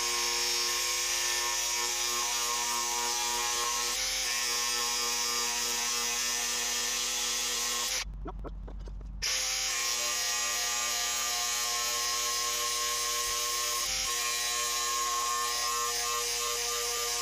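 Bosch GWX 18V-15 SC cordless mini angle grinder with a multi-material disc running steadily while cutting through 16 mm ribbed steel rebar. A little past the midpoint it stops for about a second, then starts again for the next cut.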